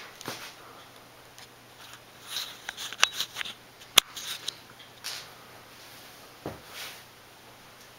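Handling noise from a handheld camera: scattered short rustles and a few sharp clicks, the sharpest about four seconds in, over a faint steady low hum.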